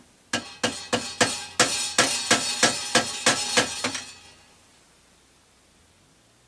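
A quick series of about a dozen sharp metallic clinks with a short ring after each, roughly three a second, stopping about four seconds in.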